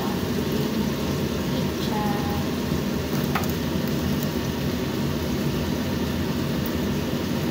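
Steady low noise of chicken simmering in a frying pan on a gas stove, with a single light click about three and a half seconds in.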